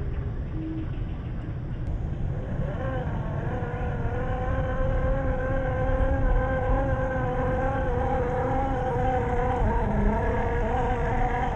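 Electric motor and gears of a 1/10-scale RC crawler whining under load as it churns through mud. The whine starts about three seconds in, holds a fairly steady pitch and wavers with throttle near the end, over a low rumble.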